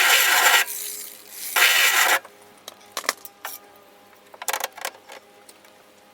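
Electric welding arc crackling on sheet steel in two bursts: the first stops under a second in, a second short burst comes about a second later. A few light clicks follow.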